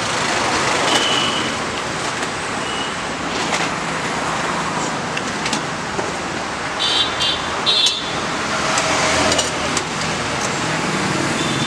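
Steady roadside traffic noise, with scattered clinks of steel utensils and a steel pot lid, and a couple of short high rings about two-thirds of the way through.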